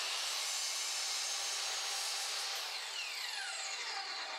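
Electric miter chop saw running and cutting into primed MDF base trim. About halfway through it is switched off, and the blade winds down with a falling whine.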